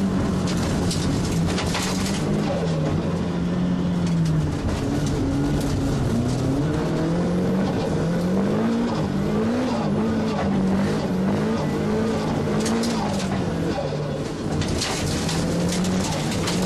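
Nissan S15 Silvia race car heard from inside its stripped cockpit, its engine revving up and falling back again and again as it is driven hard up a dirt road, over constant tyre and road noise that grows crackly about the last couple of seconds.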